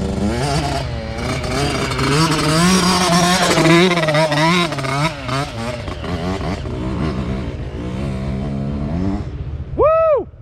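Small dirt bike engine revving unevenly, rising and falling in pitch as it works up a hill, for about nine seconds. Near the end it drops away and a short, high voice-like cry rises and falls.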